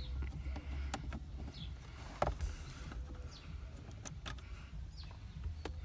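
Scattered light clicks and taps of a screwdriver working on screws in a car's centre console trim, the loudest a little over two seconds in, over a low steady rumble.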